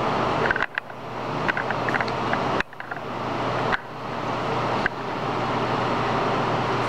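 Servo 16 x 40 engine lathe running under power: a steady whirring machine noise over a low electrical hum. The sound drops out suddenly several times in the first five seconds, each time building back up, then holds steady.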